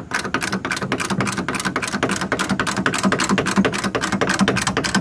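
Hydraulic bottle jack being pumped by hand to lift a lawn tractor: a rapid, even run of clicks from the quick pump strokes.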